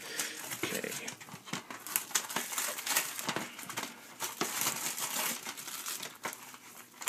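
Plastic shrink-wrap being torn and peeled off a DVD case, crinkling in many irregular little crackles.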